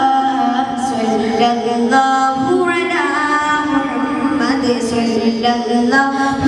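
A man singing a Malayalam devotional song, melismatic lines with long held notes, heard through the stage's loudspeaker system.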